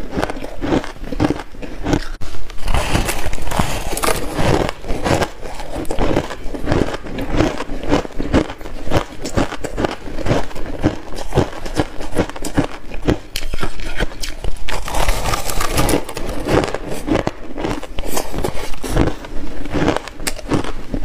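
A person chewing mouthfuls of shaved buckwheat ice, a dense, unbroken run of crisp crunches and crackles picked up close to the mouth by a lapel microphone.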